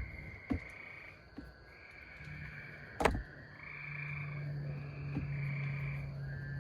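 Frogs calling in the background, a run of short calls repeating about once a second, with a few sharp clicks; the loudest click comes about three seconds in.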